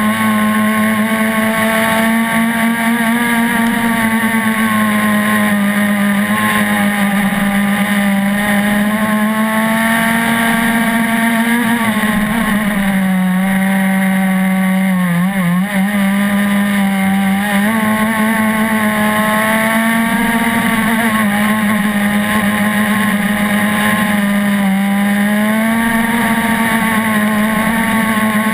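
RC gas catamaran boat's small gas engine running hard with a steady high buzz. Its pitch sags about twelve seconds in, wavers briefly, then climbs back, with smaller dips and rises later on as the throttle changes.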